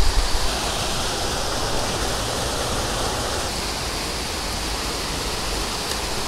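Water rushing steadily over a small spillway waterfall on a stream.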